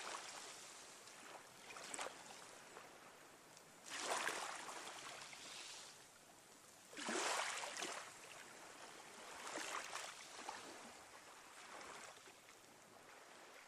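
Swells of rushing noise that rise quickly and fade away over a second or two, recurring every two to three seconds.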